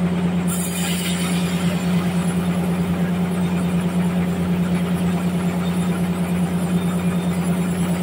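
Large band sawmill ripping a trembesi (rain tree) log: a loud, steady machine hum with a low drone, and a brighter hiss from the blade cutting through the wood that comes in about half a second in.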